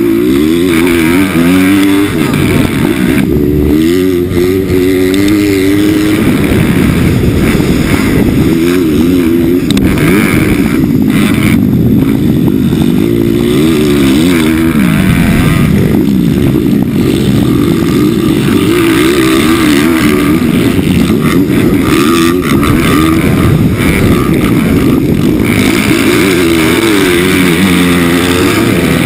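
Racing minibike's single-cylinder four-stroke engine heard from a camera on the bike, loud throughout, its pitch repeatedly climbing as the rider opens the throttle and falling back as he rolls off and shifts.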